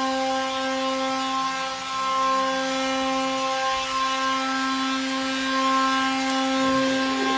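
Electric power sander running steadily: a constant motor whine over the rasp of sanding.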